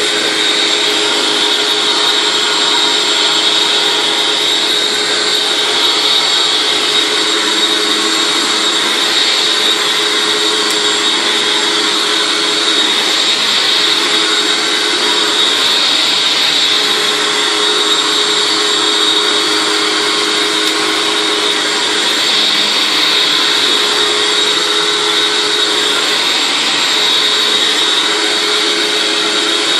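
Hoover WindTunnel Anniversary Edition self-propelled upright vacuum cleaner running steadily, a high whine over the motor's hum.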